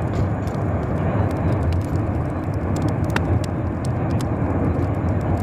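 Volcanic eruption rumbling, a deep steady roar with faint crackles over it.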